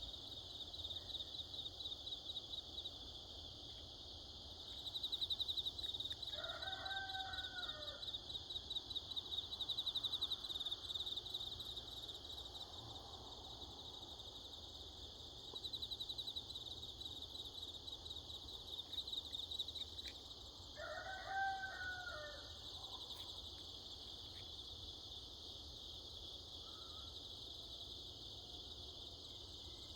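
Crickets chirring steadily in a fast, pulsing trill, with a rooster crowing twice, about seven seconds in and again about twenty-one seconds in.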